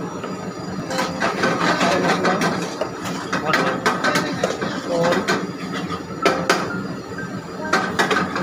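Irregular clatter and knocks of kitchen utensils and dishes over a steady low hum.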